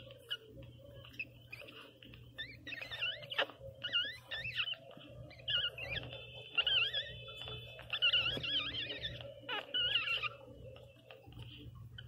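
Newborn Pinscher puppies whimpering and squealing in high, wavering cries, thickest from about two to ten seconds in, with small clicks between them.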